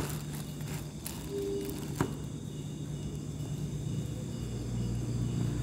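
Wooden slabs being handled and shifted, with a sharp knock about two seconds in. Behind it runs a steady chorus of insects chirping and a low hum.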